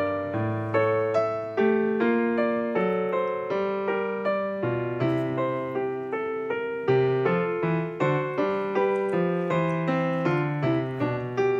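Background piano music: a steady, unhurried run of single notes and chords, each note ringing and fading.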